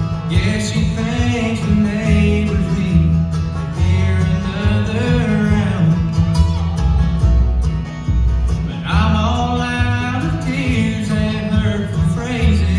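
Bluegrass band playing live: banjo, acoustic guitar, mandolin, dobro and upright bass. The upright bass keeps a steady pulsing beat under a lead melody that slides between notes.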